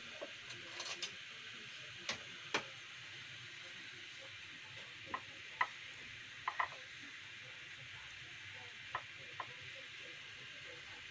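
A metal spoon clicking and tapping against the plate and the banana-leaf wrapping as it digs into a steamed fish parcel, with about a dozen sharp, scattered clicks over a steady hiss.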